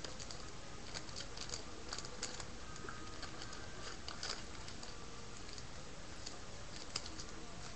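Faint, scattered light clicks and soft rustling of trading cards being handled and shuffled, over a steady background hiss.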